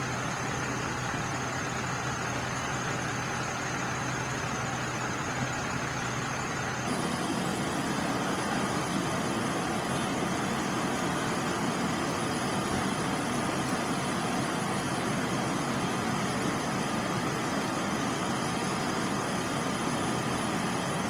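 Steady running of a large vehicle engine, with a low hum that drops out and a slight rise in level about a third of the way in.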